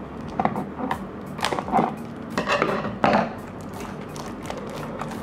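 Scissors cutting the seal of a small cardboard model-car box, then fingers working it open: irregular snips, scrapes and rustles of card for about three seconds.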